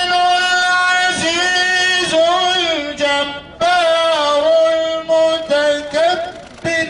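A man's voice chanting a Quran recitation in Arabic in the melodic tajwid style, holding long ornamented notes that glide in pitch, with a breath about three seconds in.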